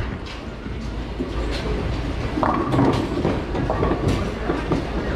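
Bowling ball rolling down a wooden lane with a steady low rumble, with scattered sharp knocks and clatters from the alley.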